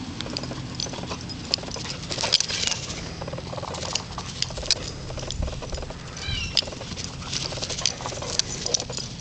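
A boxer dog's paws pattering irregularly across grass and dry ground as it runs about, with light rustling and small ticks.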